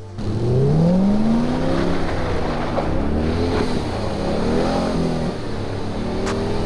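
C8 Corvette's V8 revving up and down in repeated sweeps as the car spins donuts in snow.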